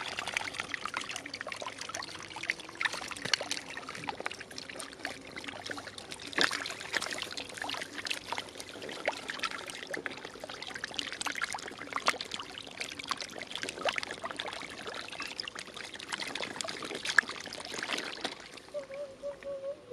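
Shallow water trickling along a muddy channel, with many small irregular splashes and slaps of fish thrashing in it.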